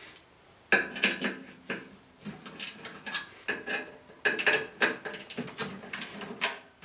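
Socket ratchet clicking in short, irregular runs, starting about a second in, as it turns the nut on a snowblower skid plate bolt to adjust the plate's height.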